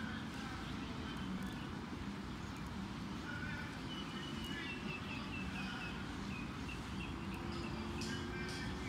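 Steady low outdoor rumble with birds chirping over it, including a quick run of short high chirps about halfway through.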